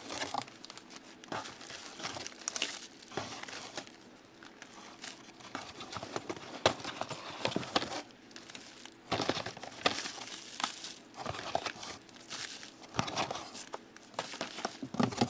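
Packing material crinkling and rustling in irregular bursts, with small clicks and knocks, as a shipping box of tools is unpacked by hand.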